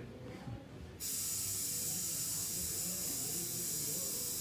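A steady, high-pitched hiss that starts abruptly about a second in and holds level for several seconds.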